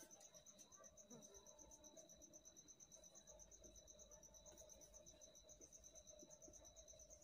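Near silence: quiet room tone with a faint, high chirping that pulses about six times a second and a faint steady hum.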